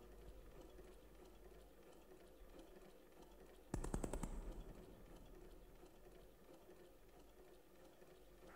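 A sudden burst of rapid mechanical clicking, a clatter of many quick ticks, a little under four seconds in, lasting about a second and dying away, over a faint low hum.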